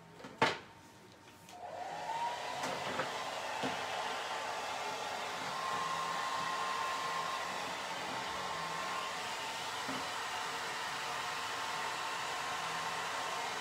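A hand-held electric dryer switched on: a sharp click shortly after the start, then the motor spins up with a rising whine and runs steadily with a blowing hiss.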